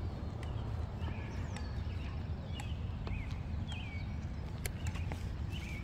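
Several birds chirping in short calls, over a steady low rumble, with irregular sharp clicks like footsteps of someone walking.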